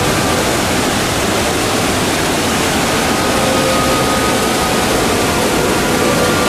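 Small waterfall cascading over rocks: a steady, loud rush of water.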